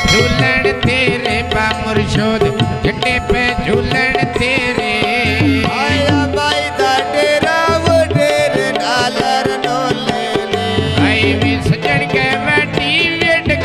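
Male voices singing a Punjabi goon mahiye folk song, with drum accompaniment keeping a steady beat.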